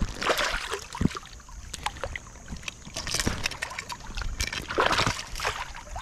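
Water splashing and sloshing as a hooked fallfish thrashes at the surface while being landed, with scattered short clicks and knocks. Rushes of splashing come about half a second in and again near the end.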